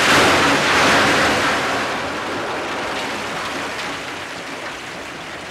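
A load of coal pouring out of a tipper lorry onto a heap: a loud rushing rattle of lumps, loudest at first and slowly dying away over several seconds.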